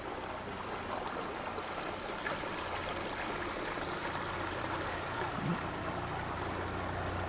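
A small motorboat's engine humming low as it passes close by, louder toward the end, over a steady hiss of water and city background.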